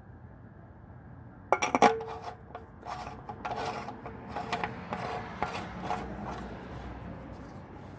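Oil filter element and its housing cap being handled and fitted back together: a few sharp clicks about a second and a half in, then a run of rubbing, scraping strokes, roughly two a second.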